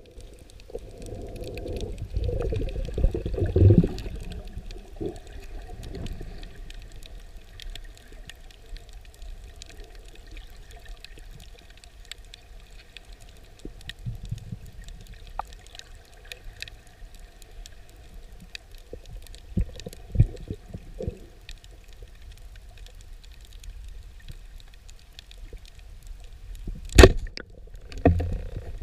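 Underwater sound on a submerged camera: a low rumble of moving water that swells now and then, with scattered faint clicks. Near the end comes a single sharp, loud crack as the speargun is fired.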